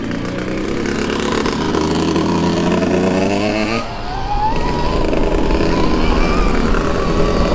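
Stark Varg Alpha electric dirt bike riding on a woods trail, its motor whine steady at first, then climbing in pitch as it speeds up about four seconds in.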